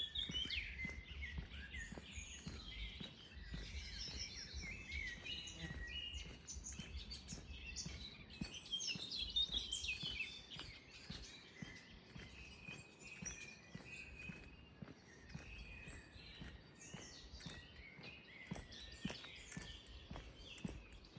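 Several birds singing and chirping together, a busy chorus of short warbled notes that thins out after about halfway, over a low outdoor rumble and scattered faint clicks.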